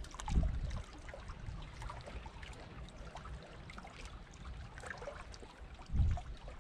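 Water lapping and trickling, with scattered small clicks and two dull, deep thumps, one about half a second in and one near the end.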